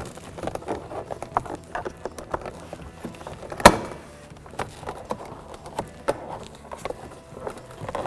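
Plastic trim tool prying at a Cadillac SRX's interior trim piece, with scattered small plastic clicks and scrapes as its retaining clips are worked loose. One loud sharp snap comes about three and a half seconds in.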